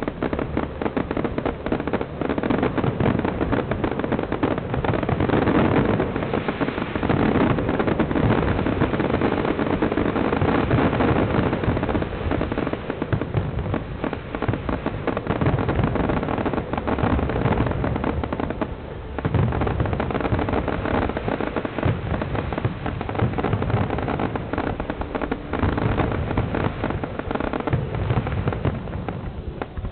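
Fireworks display: a dense, unbroken barrage of aerial shell bursts and crackle, with a brief lull about two-thirds of the way through.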